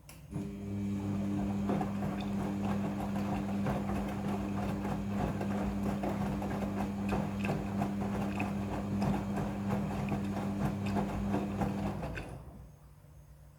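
Midea front-loading washing machine running for about twelve seconds: a steady low motor hum with irregular sloshing and knocking from the load. It starts suddenly and stops suddenly, typical of the drum's on-off tumbling during a wash.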